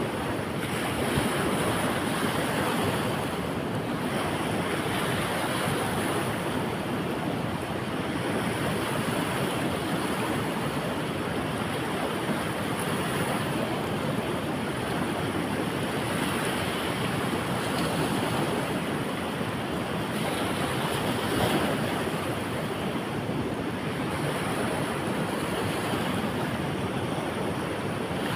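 Fast-flowing mountain river rushing over rapids: a steady, even rush of water.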